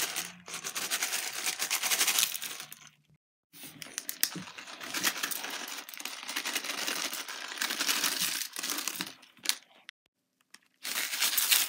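Sequins and paper confetti being shaken out of plastic bags onto slime: the packets crinkle and a dense patter of small pieces falls. It comes in three spells, with short breaks at about three seconds and ten seconds in.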